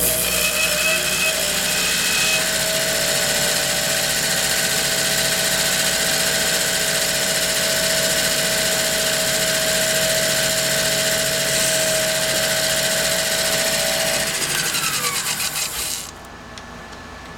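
Small lathe running with a steady whine and hum, its tool bit turning down the tenon on a pool cue shaft. About two seconds before the end the motor is switched off and winds down with a falling pitch.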